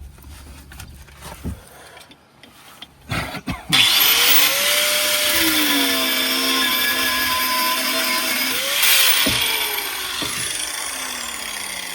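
Angle grinder starting up about four seconds in and cutting into a seized stabilizer link, its whine shifting in pitch as the disc loads up in the metal. A few knocks come before it starts.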